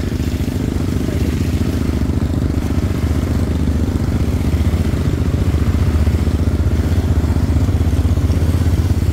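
ATV engine running steadily while riding over a rough dirt track, getting a little louder about halfway through.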